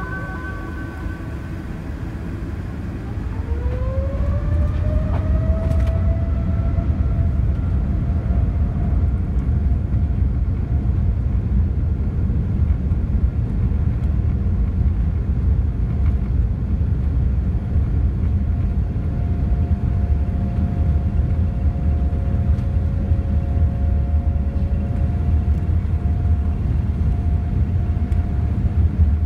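Boeing 787-9's jet engines heard inside the cabin: a steady low rumble, with a whine that rises in pitch about three seconds in and then holds steady as the engines spool up and the loudness steps up.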